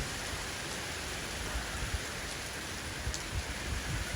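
Heavy rain pouring down steadily, mixed with some hail, with irregular low rumbles underneath.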